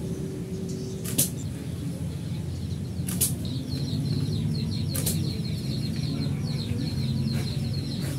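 Homemade bow being shot: sharp snaps of the string about every two seconds, three loud and a fainter fourth, over a steady low hum. From about halfway in, a bird chatters rapidly and high in the background.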